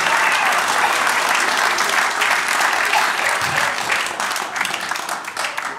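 Audience applauding after a punchline, the clapping dying down near the end.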